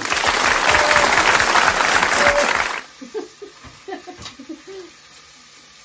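Burst of applause lasting nearly three seconds, starting and stopping abruptly, followed by a few soft, short vocal sounds.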